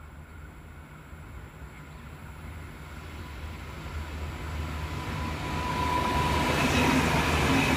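V/Line VLocity diesel multiple unit approaching and passing close, its diesel engines giving a low drone that grows steadily louder as it nears. A thin high tone joins about five seconds in.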